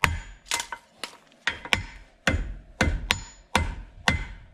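Hammer striking a steel horseshoe on an anvil as it is shaped, about two blows a second, each with a short metallic ring.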